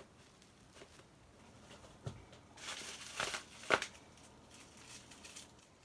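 Packaging being handled during an unboxing: light rustling and crinkling with a few small clicks, a short rustle about three seconds in and a sharp tap just after it.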